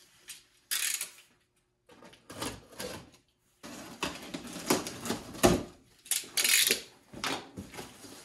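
A large cardboard shipping box being opened by hand: irregular tearing, rustling, scraping and knocking, with two brief hissing rips, about a second in and just after six seconds.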